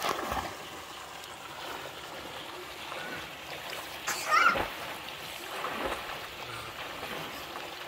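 Steady rush of running water with splashing; the loudest splash comes about four seconds in.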